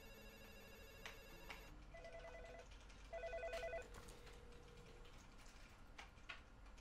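A telephone ringing faintly with a trilling double ring about two seconds in: two short warbling rings close together.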